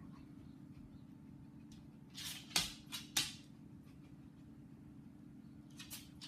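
A dog sniffing in short, noisy bursts, a few about two to three seconds in and more near the end, over a steady low hum.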